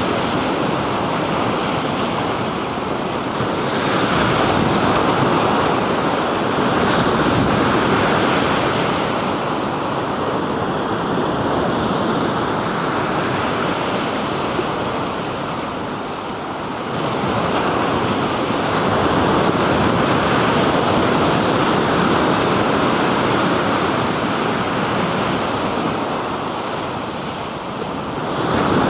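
Black Sea waves breaking and washing up on the shore, the surf swelling and ebbing every few seconds, with wind on the microphone.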